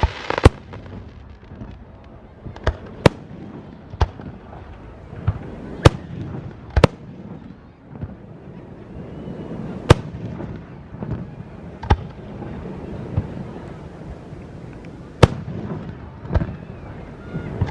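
Fireworks display: a string of sharp, loud bangs from shells bursting overhead, about a dozen at irregular intervals of one to three seconds.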